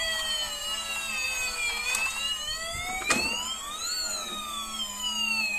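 Emergency-vehicle wail siren sweeping slowly down in pitch, then up, then down again, each sweep taking about two seconds. A single sharp click comes about three seconds in.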